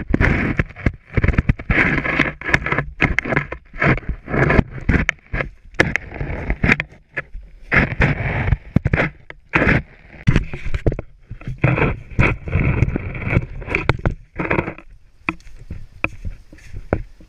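Boots crunching and scraping in soft spring snow, step after step, on an uphill hike. The steps are loud and irregular, with short gaps between them.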